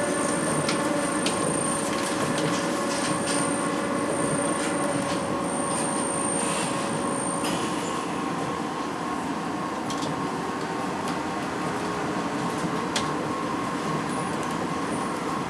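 Tama Monorail car running along its elevated guideway, heard from the cab: a steady running rumble of its rubber tyres on the concrete beam, with steady whining tones and a few short clicks. A high whine and a lower tone cut off about seven and a half seconds in, and the running sound eases slightly after that.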